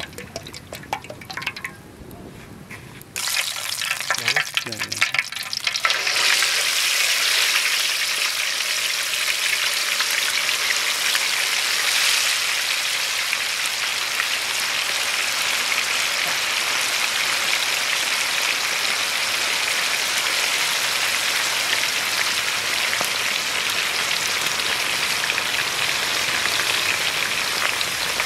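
Oil trickling into a wok at first. About six seconds in comes a sudden loud, steady sizzling hiss as pork ribs deep-fry in the hot oil, and it holds to the end.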